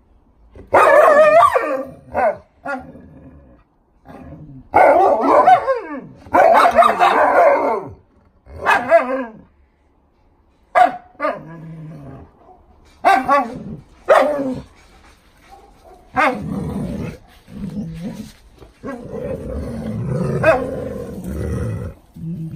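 Alaskan Malamutes barking and grumbling in loud, bending calls of a second or two each, repeated over and over, turning lower and rougher, like growling, in the last several seconds.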